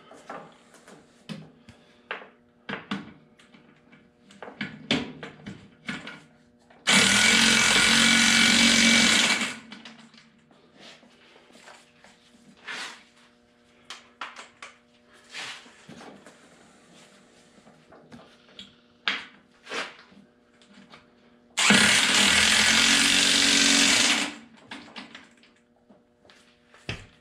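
Impact wrench running down the rear wheel bolts of a Farmall Cub tractor in two loud bursts of about two and a half seconds each, about seven seconds in and again near 22 seconds. Light clinks and knocks of tools and parts come in between.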